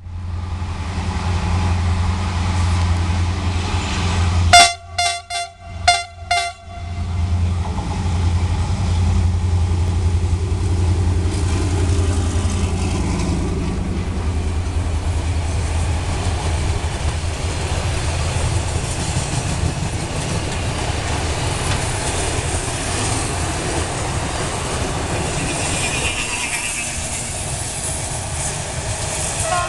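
A CRRC Ziyang CDD6A1 diesel locomotive hauling a freight train past: several short horn blasts about five seconds in, with the engine's low drone, then the covered freight wagons rolling by on the rails.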